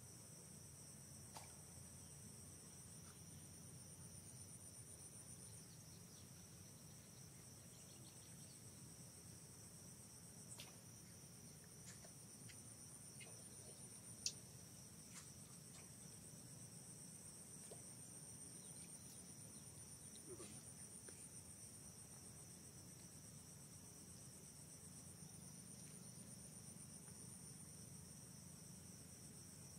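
Faint, steady chorus of forest insects trilling in two high, unbroken tones, with a few small clicks, the sharpest about fourteen seconds in.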